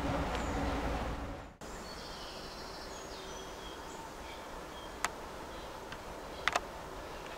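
A low rumble that cuts off abruptly about a second and a half in, then a quiet countryside background with birds chirping, a sharp click about five seconds in and a double click a second and a half later.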